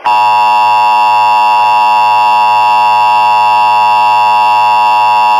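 Emergency alert attention tone: a loud, steady, buzzy electronic tone held without change.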